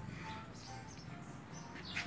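Small birds chirping, with short high chirps and brief clear whistled notes, over a low steady hum.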